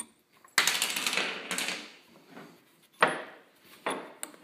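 Two loud rubbing scrapes with sudden starts, about half a second and three seconds in, each fading over about a second, followed by a lighter knock near the end: close handling noise.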